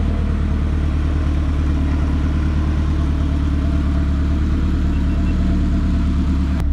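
Turbocharged Honda Civic engine idling steadily as it warms up. A single click near the end.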